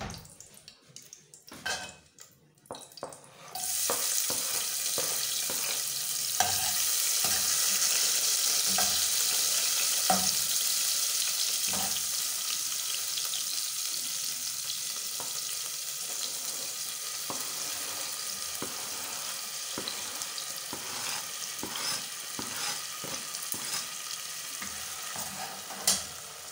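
Diced tomato and onion frying in hot oil in a stainless steel saucepan. A loud sizzle starts suddenly about three and a half seconds in and slowly eases, with a metal slotted spoon clicking against the pan as it stirs.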